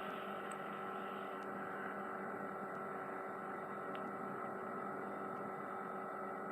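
A steady electrical hum with several held tones over a faint even hiss, with no change.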